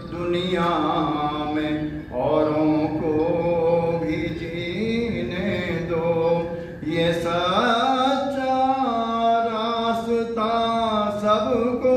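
A man singing a Hindi devotional bhajan in long, drawn-out melodic phrases, with short breaks between lines.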